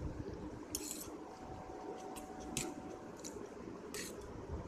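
Metal fork scraping and clinking against a steel plate while gathering up noodles, a handful of short sharp scrapes spread through, the one a little after a second in and the one near the end the loudest.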